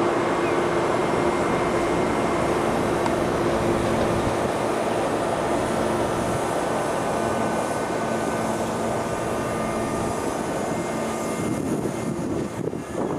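Steady drone of a ferry's engines and deck machinery, with a constant low hum running through it. Wind buffets the microphone near the end.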